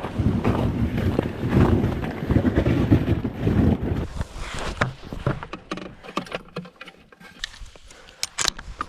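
Wind buffeting the microphone with a low rumble for about four seconds, then it dies down and a scatter of short clicks and knocks follows.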